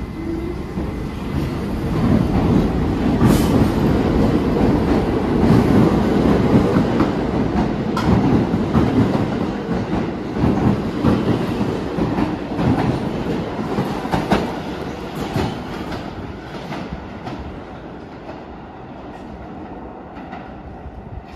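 R46 subway train pulling out of the station: the cars rumble and clatter over the rail joints with sharp clacks, building over the first few seconds, then fading steadily as the last car leaves.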